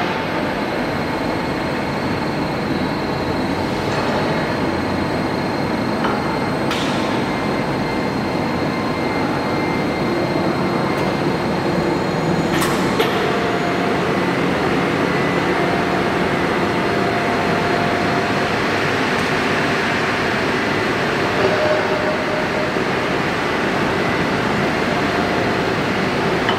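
Large horizontal lathe running, its big four-jaw faceplate turning slowly: a steady mechanical noise with faint high whining tones and a few light ticks.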